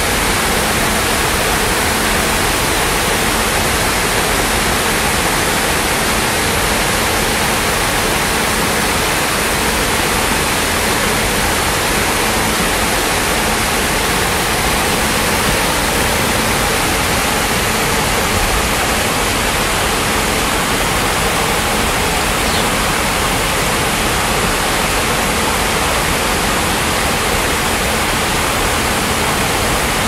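Water spilling steadily over a tiered rock cascade into a pond: an even, unbroken rush of falling and splashing water.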